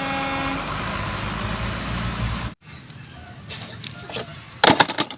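A loud road-vehicle engine with a short horn honk at the start. It cuts off abruptly about two and a half seconds in. Then come quieter scattered clicks and knocks of plastic toys being handled, with a sharp clatter near the end.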